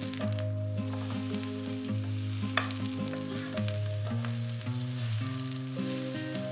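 Kimchi pancake batter sizzling and frying in oil in a pan, a steady crackling hiss, with one light click of a utensil about two and a half seconds in. Soft background music with held notes plays underneath.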